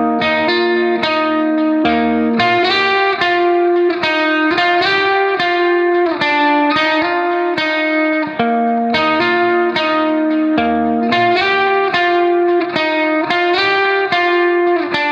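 Background music: a guitar picking a steady run of single notes with a bass line underneath.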